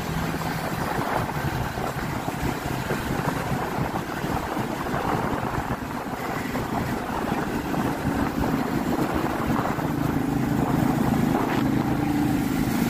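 Motorcycle engine running while riding, with wind rushing over the microphone; the engine note grows stronger in the second half.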